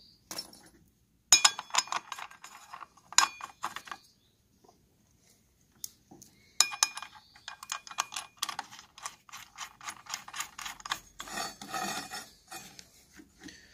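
Metal clinking and rattling as a diamond cutting disc, flange washer and bolt are fitted onto the arbor of a hand circular saw, with some knocks leaving a short metallic ring. The clinks come in two spells, a brief one about a second in and a longer, busier one from about the middle to near the end.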